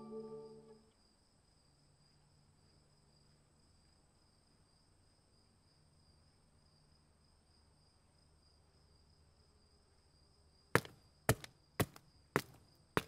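Background music fades out, leaving near silence with a faint steady high whine. Near the end come sharp footsteps, about two a second, five of them.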